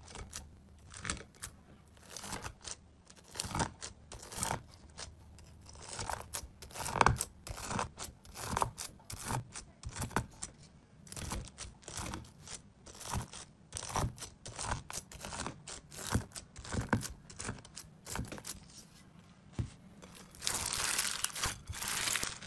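Crunchy bead-filled slime crackling as a long metal blade is pressed down through it again and again, each cut a short crunch. Near the end, hands squeezing and pulling the slime apart give a denser, continuous crackling.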